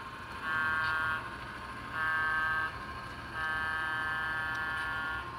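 Diesel locomotive horn from an HO-scale model locomotive's sound system: two short blasts, then a longer one.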